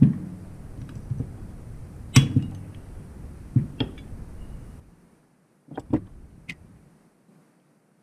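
Handling noise from a stripped aluminium carburetor body and metal hand tools on a workbench: a scatter of sharp clicks and knocks, the loudest at the start and about two seconds in, over a low rumble of handling.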